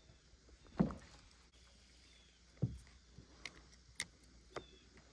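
A few scattered knocks and clicks from fishing gear being handled in a kayak, the loudest about a second in. A faint short high chirp repeats in the background about once a second.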